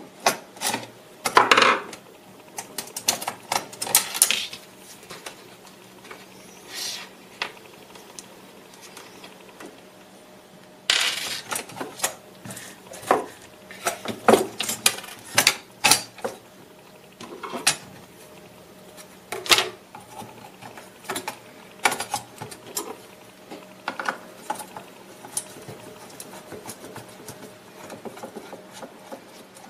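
A plastic speedometer and instrument cluster being taken apart by hand with a screwdriver: irregular clicks, taps and rattles of screws and plastic parts, with a longer scrape about eleven seconds in.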